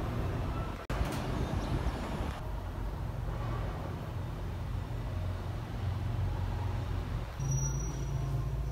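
Steady low background rumble like distant traffic, with abrupt jumps where the footage is cut: a brief dropout and click about a second in, and another change about two and a half seconds in.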